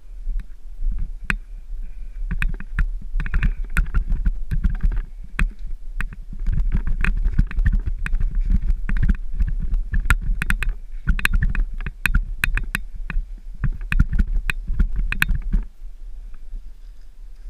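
Mountain bike clattering and knocking hard over rough, rooty, stony ground during a fast downhill descent, over a constant low wind rumble on the microphone. The knocks die down about two seconds before the end.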